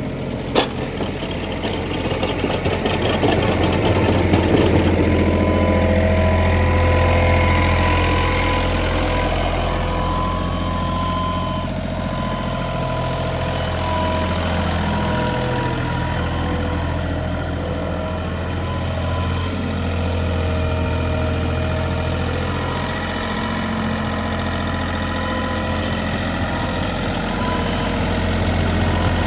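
John Deere 3720 compact tractor's three-cylinder diesel engine running as the tractor drives around, a steady low hum with a whine above it, growing louder for a few seconds near the start. A single sharp click about half a second in.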